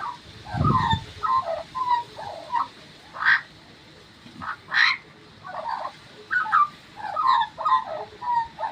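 Australian magpie singing: a warbling run of short, varied notes, with two louder, higher calls about a third and halfway through. A brief low thump comes near the start.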